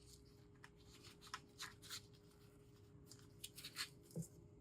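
Near silence, with faint scattered light scrapes and ticks from hands working with resin-craft supplies over a low steady hum. The ticks cluster about three and a half to four seconds in.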